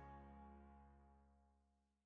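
Background music ending on a single held chord that fades steadily away.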